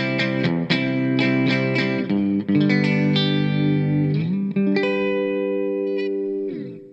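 Squier Classic Vibe Telecaster Custom electric guitar played with both single-coil pickups selected, through a Marshall amp set clean with a little reverb and a compressor. Chords are strummed quickly at first, then held, and the last chord rings until it is muted just before the end. The tone has a slight crunch and sounds typical of a Telecaster.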